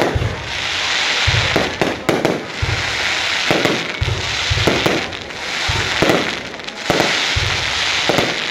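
Aerial fireworks shells launching and bursting in quick succession: sharp bangs about once or twice a second over a continuous crackling hiss.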